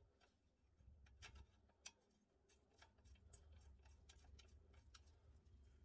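Near silence with faint, scattered metal clicks and ticks from a ball-joint nut being spun onto its bolt by hand.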